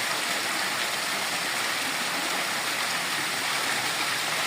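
Water falling and splashing steadily in a built garden waterfall, an even rushing hiss with no breaks.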